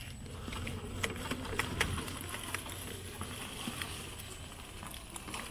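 A 6x6 RC crawler truck's electric motor and gearbox running at low speed, a low steady hum, while its tyres crunch over dry leaves and snap twigs. The crackling is thickest about one to two seconds in.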